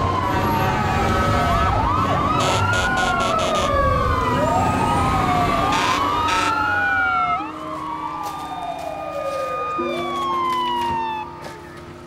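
Several emergency vehicle sirens wailing at once, their pitches rising and falling out of step with one another, over a low vehicle rumble that drops away about seven and a half seconds in.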